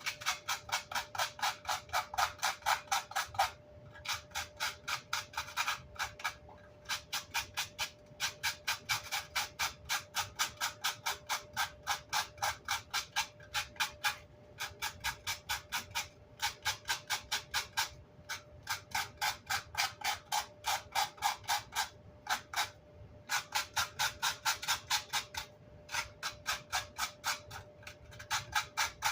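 Rapid back-and-forth scrubbing strokes by hand on an amp's grill cloth and baffle, about four strokes a second, in runs of a few seconds broken by short pauses. A faint steady hum runs underneath.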